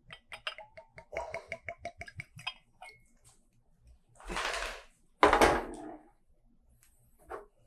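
Whiskey glugging out of a bottle neck into a tasting glass in quick gurgles, followed about four seconds in by a short scrape and then a louder knock as the bottle is handled.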